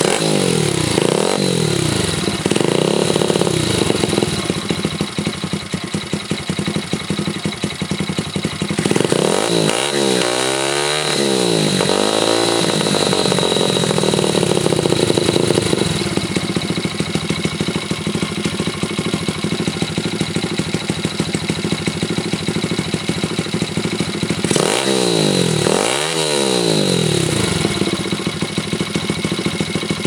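Honda SL70's small single-cylinder four-stroke engine catching on a kick-start, then blipped a few times and settling to an idle, through a Cobra muffler quietened with homemade baffles. It is revved in a series of quick blips twice more, about a third of the way in and again near the end, dropping back to a steady idle between.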